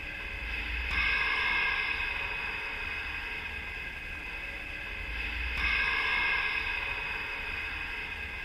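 Electronically processed logo audio: a steady cluster of high tones over a constant low hum, swelling louder twice about four and a half seconds apart.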